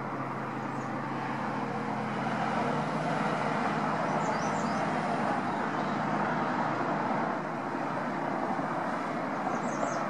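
Highway traffic passing below: a steady rush of tyres and engines that swells for a few seconds as vehicles go by and eases about seven seconds in.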